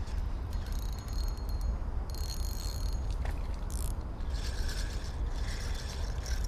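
A spinning fishing reel being cranked in three spells of a second or two, its gears whirring as line is wound in, over a steady low rumble.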